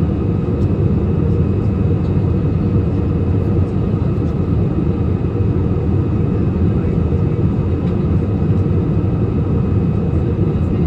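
Passenger aircraft cabin noise in flight: a steady, even rush of engines and airflow, strongest in the low end, with a few faint steady tones above it.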